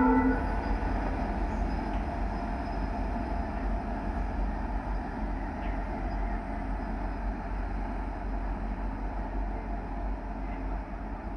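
A train running past with a steady rumble that slowly fades as it draws away. The last note of a multi-tone train horn ends right at the start.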